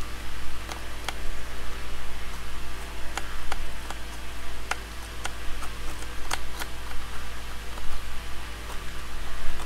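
A small drawknife shaving a wooden leg in short strokes: scraping cuts with about nine sharp clicks of the blade, over a steady background hiss.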